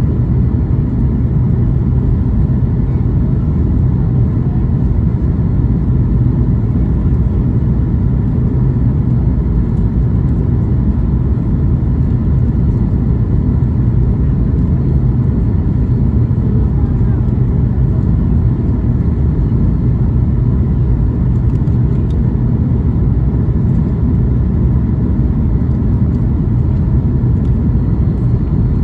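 Steady low rumble of engines and airflow inside the cabin of a Boeing 737 MAX 8 airliner, with its CFM LEAP-1B turbofans.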